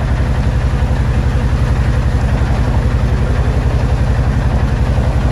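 Boat engine running steadily, heard from on board: a loud, low, evenly pulsing engine note.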